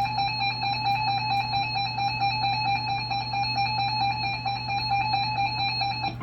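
Emergency Alert System attention tone: a steady, loud electronic tone held for about six seconds, then cut off abruptly. It is the alert signal that introduces a spoken EAS warning. A steady low hum runs beneath it.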